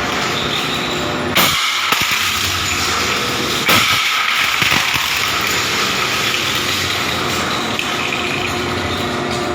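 Shredder machine running with a loud, steady mechanical noise, broken twice by a sudden loud hiss about one and a half and four seconds in.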